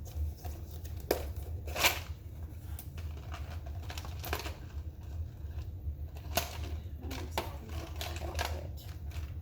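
Irregular clicks and taps of a hand tool and small lamp parts being handled while trying to cut through a lamp wire, over a steady low hum; the loudest clicks come about one and two seconds in.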